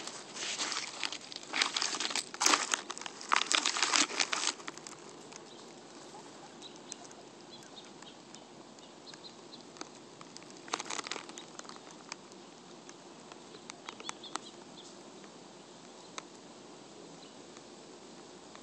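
Guinea pigs feeding on a lawn: dry crinkling and crackling as one nibbles at a dry leaf and grass, dense for the first four seconds or so, then only a few scattered crackles.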